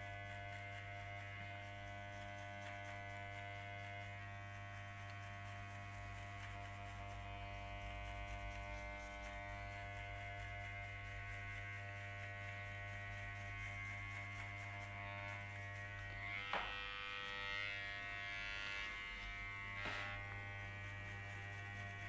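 Electric hair clipper running with a steady buzz as it cuts short hair at the side of a man's head, with a couple of light clicks in the last few seconds.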